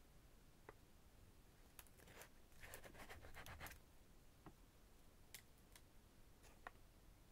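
Faint handling of paper butterfly stickers with tweezers: a few light ticks and clicks, and about midway a second or so of soft papery crinkling as a sticker is peeled and lifted.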